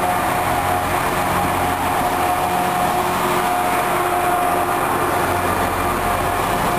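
Enterprise train rolling past along the platform, with its Class 201 diesel-electric locomotive drawing alongside near the end. It is a steady rumble of wheels and engine under a constant thin high whine.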